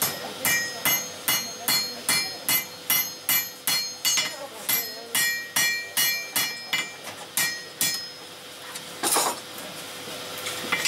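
Blacksmith's hand hammer forging a red-hot iron bar on an anvil: steady blows about two and a half a second, each with a short metallic ring. The hammering stops about eight seconds in, and a brief clatter follows a second later.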